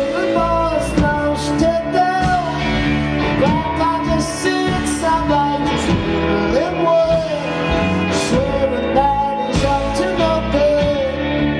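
A live rock band playing loud, with a voice singing over the instruments.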